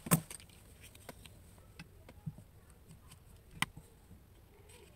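Handling noise from a coaxial antenna cable, small metal F-connectors and heat-shrink tubing being picked up and put down. There is a sharp click right at the start, another about three and a half seconds in, and faint taps between.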